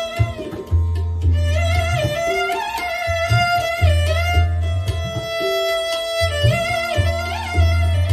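Indian-style instrumental music: a bowed string instrument plays a held, sliding melody, over deep low notes that come and go in a repeating pattern.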